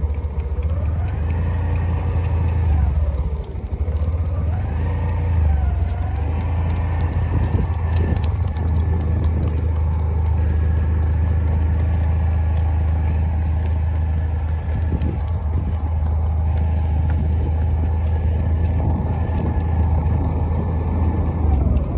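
Motorcycle engine running at low speed with heavy wind rumble on the microphone. The engine pitch rises and falls a few times in the first six seconds.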